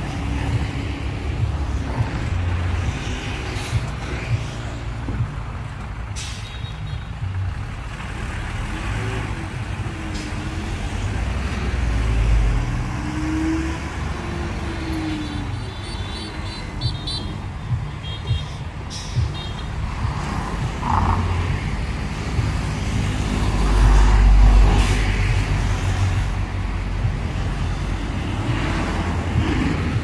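Heavy diesel engines of construction machinery working, a low rumble that swells twice and is loudest about 24 seconds in. A few sharp knocks, and a short spell of high beeping a little past halfway.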